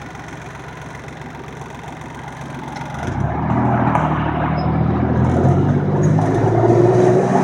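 Vehicle engine running on the road. About three seconds in the engine note comes up strongly and keeps growing louder.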